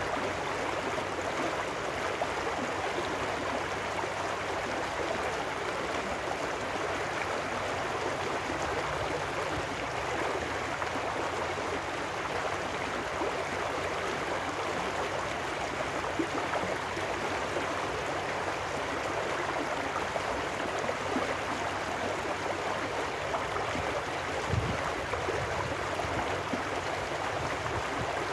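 Small trout stream running fast over rocks in a shallow riffle: a steady, even rushing and splashing of water.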